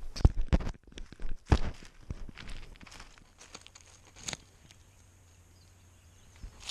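Dry leaves and twigs crunching and rustling under a cat's paws as it moves quickly over the forest floor, with a few heavy thumps from the body-mounted camera in the first two seconds. The cat then holds still and it goes much quieter, apart from a single sharp crackle a little past four seconds.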